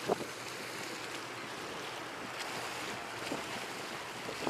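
Small waves washing against a rocky seawall, heard as a steady hiss, with wind on the microphone; a short knock comes right at the start.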